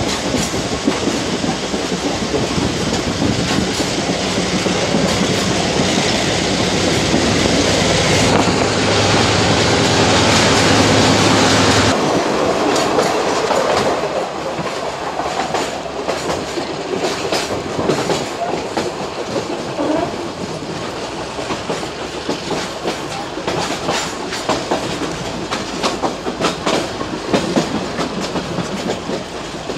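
Riding in a metre-gauge passenger coach: steel wheels clattering over the rail joints, with the steady hum of the diesel locomotive ahead. About twelve seconds in the hum and rushing fall away, and a run of sharp wheel clicks over the joints stands out.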